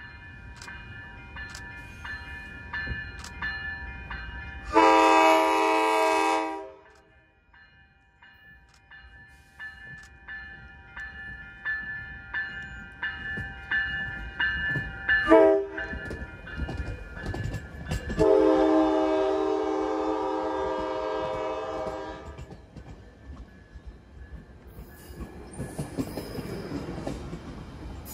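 Coaster commuter train's horn sounding a long blast, a short one, then a longer one as the cab car approaches: the close of the standard grade-crossing signal. A warning bell rings steadily under the first blasts, and near the end the train's wheels rumble past on the rails.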